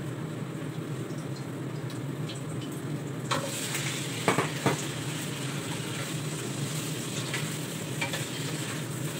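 Raw chicken pieces tipped into hot sesame oil in a wok: sizzling starts about three seconds in, with two knocks as the pieces land. The chicken keeps frying and sizzling while a wooden spatula stirs it, with small clicks from the spatula, over a steady low hum.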